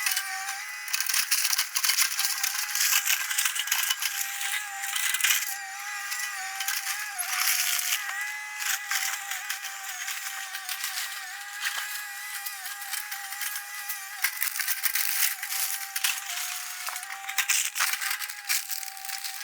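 Excavator working through a house demolition: a steady, slightly wavering machine whine runs throughout under dense cracking, crunching and rattling of breaking wood and debris.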